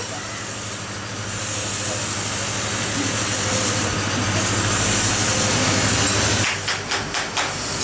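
Factory machinery running with a steady low hum and a noisy rush. About six and a half seconds in, the hum cuts out and a few short knocks or clatters follow.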